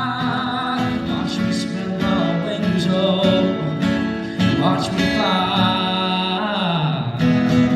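Country-style song with acoustic guitar playing an instrumental passage after the last chorus, with a held vocal or melodic line.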